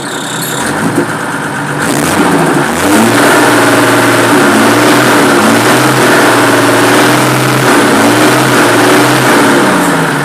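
Chevrolet D60 truck's diesel engine running, revved up about two seconds in and held at high revs with a few dips, then dropping back toward idle near the end. It is freshly running with a new injection pump, and the mechanic judges the injection timing slightly retarded.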